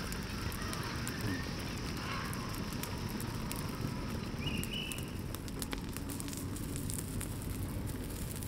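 Steady hissing noise with scattered sharp crackling clicks that grow denser about halfway through, and a brief high chirp near the middle.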